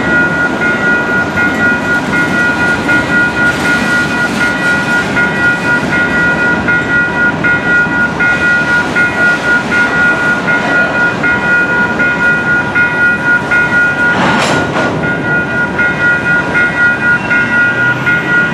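Freight train of covered hopper cars rolling through a level crossing: steady rumble and rattle of wheels on the rails, with the crossing's warning bell ringing in a steady repeating pattern over it. There is a brief louder burst of noise about fourteen seconds in.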